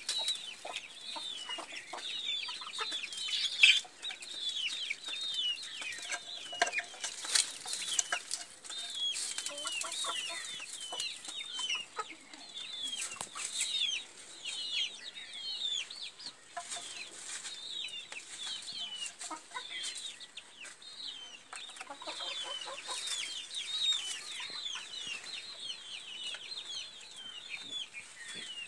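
Village chickens: chicks peeping continuously in short, high, falling cheeps, several a second, with hens clucking among them.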